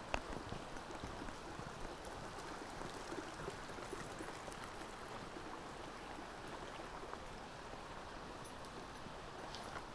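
Steady rush of a rocky brook's water running over stones and small cascades, with one sharp click right at the start.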